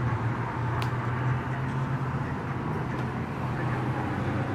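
Steady low mechanical hum over a wash of traffic and forecourt noise at a gas station, with a faint sharp click about a second in.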